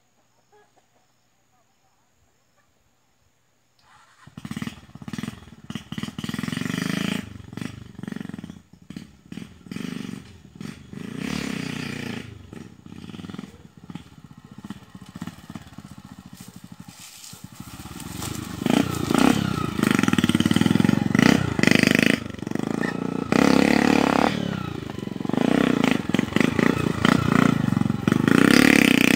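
Small single-cylinder four-stroke engine of a Honda CG Titan motorcycle, heard after about four seconds of near silence, revving up and down unevenly as the bike is ridden on a dirt bank. It grows louder in the second half as the bike comes close.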